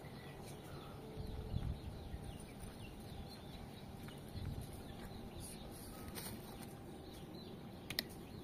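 Faint rural ambience: chickens clucking and small birds chirping, with two low muffled bumps and a single sharp click near the end.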